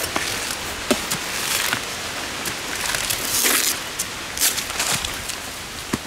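Machete chopping and prying into a felled, weevil-bored coconut palm trunk: a few sharp knocks of the blade on the wood and longer rasping tears as fibrous strips of the trunk are split and pulled away.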